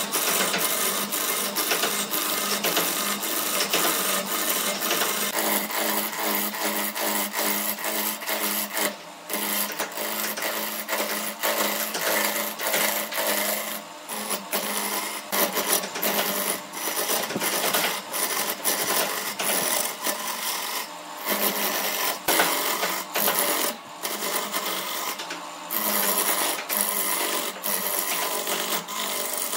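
Wood lathe spinning a layered wood blank while a hand-held turning tool cuts into it: a continuous rasping scrape with rapid chatter. It breaks off briefly a few times as the tool lifts from the wood.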